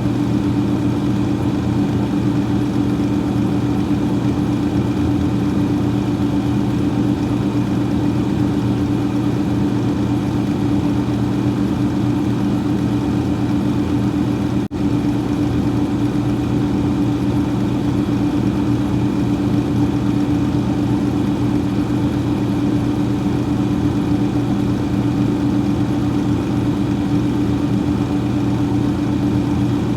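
Freezer fan running with a steady hum and airy whir, cutting out for an instant about halfway through.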